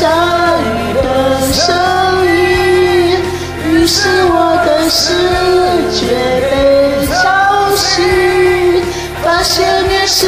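Pop ballad music: a held, gliding sung melody over accompaniment, with a drum beat about once a second.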